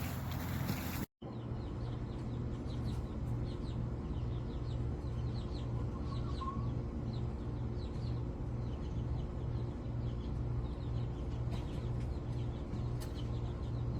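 Birds chirping faintly and often over a steady low hum that pulses about two to three times a second, after a brief cut-out of all sound about a second in.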